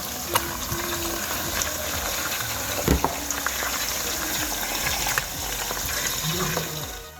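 Goat meat and onions frying in hot vegetable oil: a steady sizzle, with a few sharp clicks of a utensil against the pot as it is stirred. The sizzle fades near the end.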